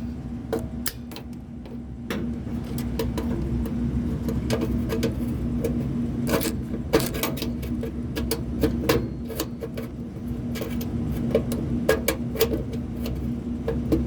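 A steady low machine hum, with frequent sharp clicks and taps of hand tools on metal panels and screws.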